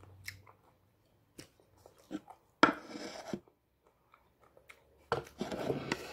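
Handling noise from a hand working the recording phone right at its microphone: scattered small clicks and two bursts of rustling, a short one a little before the middle and a longer one of about a second near the end.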